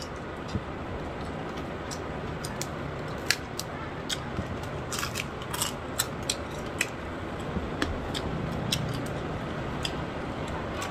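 Close-up eating sounds of a person chewing and biting through crab and fried noodles: irregular sharp clicks and crunches, bunched together about halfway through, over a steady background hiss.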